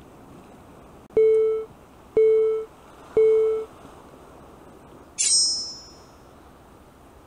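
Edited-in countdown sound effect: three short beeps a second apart, then a brighter, higher chime that rings out briefly, over faint wind and sea noise.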